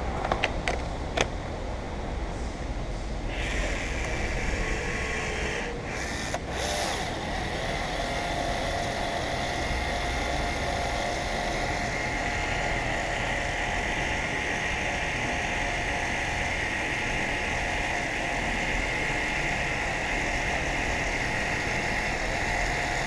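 A few sharp clicks, then a steady mechanical whir with a constant high whine.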